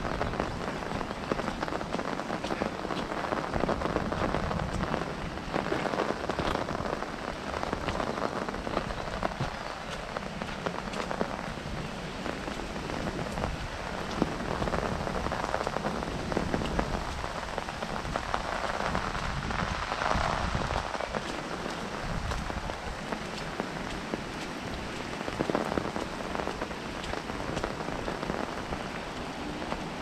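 Steady rain falling on an umbrella held overhead: a dense, even mass of fine drop hits, growing louder for a couple of seconds about two-thirds of the way through.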